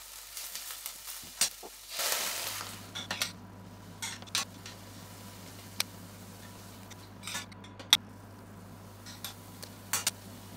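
A spoon stirs sliced onions in a stainless steel saucepan, making scattered clinks and scrapes against the pan over a faint sizzle. A low steady hum comes on about two seconds in.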